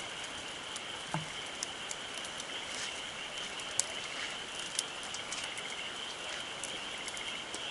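Wood campfire crackling, with scattered sharp pops every second or so. A steady high-pitched trill runs underneath.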